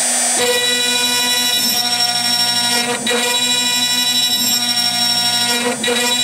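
1.5 kW spindle of a home-made CNC router milling aluminium with a small end mill: a loud, steady, high-pitched whine made of many tones at once, dipping briefly about three seconds in and again near the end.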